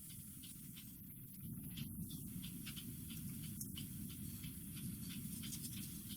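Faint sound of scissors cutting through a piece of black felt.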